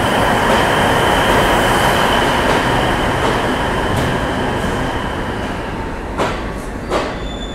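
A DEMU diesel-electric multiple-unit train rolls slowly past on departure: a steady rumble of wheels on rail with a thin high whine, growing fainter as it pulls away. Near the end come a couple of sharp wheel clacks over rail joints.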